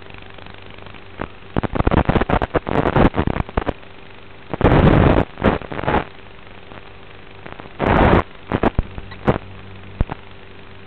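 Analog FPV video receiver audio recorded by the goggle DVR: a steady electrical hum interrupted by loud, irregular bursts of crackling static, the longest about halfway through, as the video signal breaks up.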